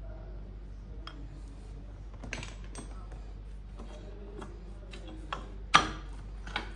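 Light clicks and knocks of a distribution transformer's porcelain LV bushing and its gasket being handled and set onto the steel cover plate, with one sharp knock a little before the end.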